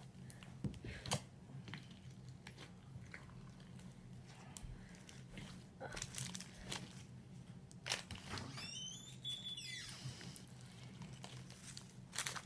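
Clear Elmer's glue slime loaded with beads and sprinkles being mixed and squished, giving soft crunching and crackling with scattered little clicks. About two-thirds of the way through, a brief falling whistle-like tone.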